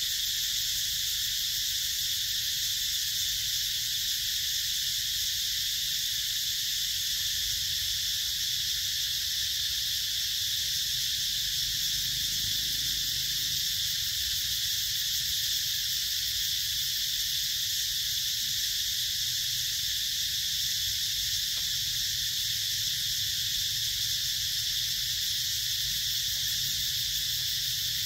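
Steady, unbroken high-pitched drone of a forest insect chorus, such as cicadas and crickets, holding the same level throughout, with a faint low rumble underneath.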